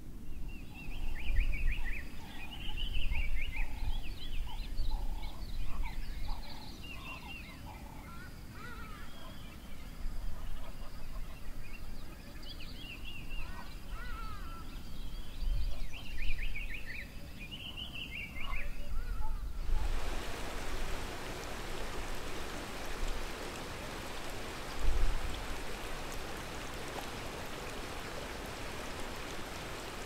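Eurasian sparrowhawk calling in quick runs of short, sharp notes, repeated in bouts, over low rumbles. About twenty seconds in the calling stops and a steady hiss takes over.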